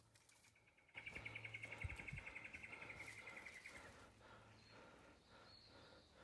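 A rapid high trill of about ten pulses a second from a calling animal, starting about a second in and lasting about three seconds, dropping slightly in pitch at the end, over faint outdoor hiss.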